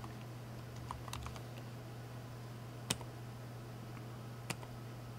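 A handful of separate keystrokes on a computer keyboard, the loudest about three seconds in, over a steady low hum.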